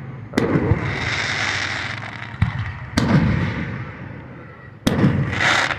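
Aerial fireworks going off: four sharp bangs, each trailed by a low rumble and a crackling hiss, the loudest hiss in the last second.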